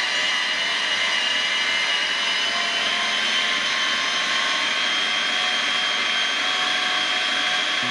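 Culinaire 'Ollie' frozen dessert maker's motor running, loud and steady with a high whine, grinding frozen fruit into soft-serve that comes out of the spout.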